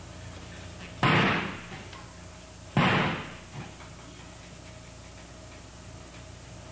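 Two loud clatters of folding chairs striking a wooden stage floor, about a second and three seconds in, each ringing briefly, followed by a smaller knock.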